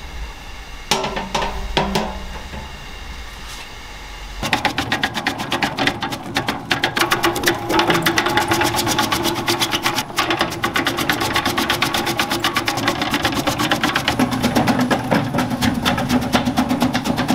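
A low hum with a couple of sharp clicks, then about four seconds in a fast, steady clattering starts abruptly and keeps going, like a small machine running.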